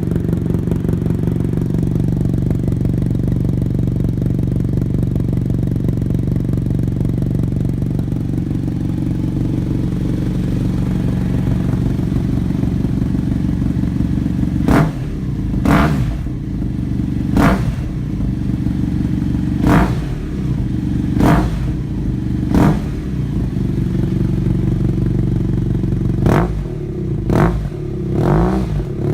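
BMW F800 GS Adventure's parallel-twin engine running through an aftermarket DanMoto carbon GP exhaust in a closed garage. It idles steadily for about half the time, then is blipped in a run of short throttle revs, each rising and dropping back to idle quickly.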